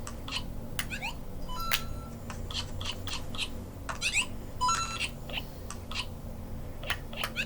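Lego Mario figure's built-in speaker playing its electronic game sounds: short beeps and quick rising chirps in little clusters, repeating.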